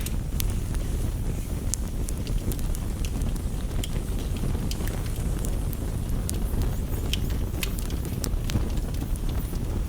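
Campfire crackling, with irregular sharp pops and snaps over a steady low rumble, mixed with steady rain tapping on a window pane.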